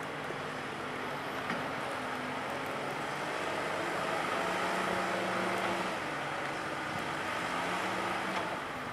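JCB Loadall 541-70 telehandler's diesel engine running steadily. It gets louder around the middle as the engine works to lift the boom with a full bucket of sand.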